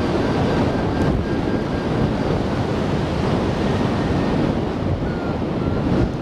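Steady rush of airflow buffeting the microphone of a camera mounted on a hang glider in flight.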